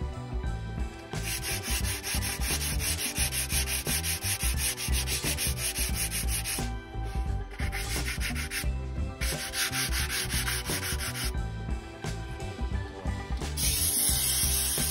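Sanding sponge rubbed back and forth in quick strokes over the painted engine cam cover, taking the paint off the raised lettering plate. It comes in three spells with short pauses between them.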